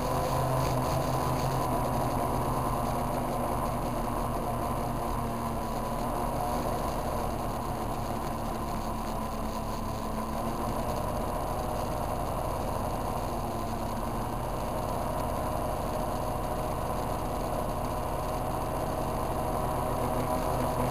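Powered parachute's engine running steadily in flight, a constant drone.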